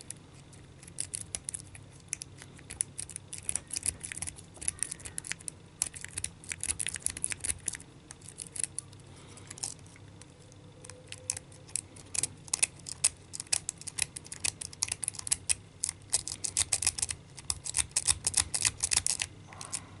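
Lock pick raking the pin tumblers of a cheap Kinzo 30 mm padlock held under tension: rapid, irregular metallic clicking in clusters, thinning out for a couple of seconds about ten seconds in.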